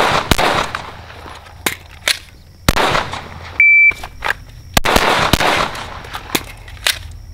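Pistol shots from a compensated 9mm handgun in quick strings. About three and a half seconds in, a short electronic shot-timer beep starts a new string, and the shots resume about half a second later.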